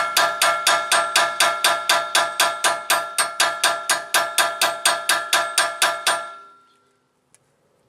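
A hammer striking a nut threaded onto a wheel stud, driving the knurled stud out of a 2003 Toyota Corolla's rear hub. The blows are rapid and even, about four a second, each with a metallic ring, and they stop about six seconds in.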